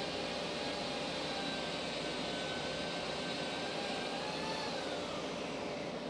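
A swarm of disturbed Africanized honey bees buzzing: a steady, dense hum with single buzzes sliding up and down in pitch as bees pass close. It is the sound of an agitated, defensive colony.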